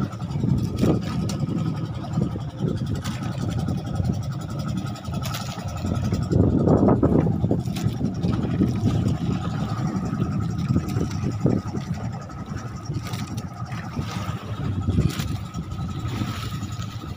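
A motorized outrigger fishing boat's (bangka's) engine running steadily: a low, uneven rumble with a thin, steady whine above it and a few short knocks.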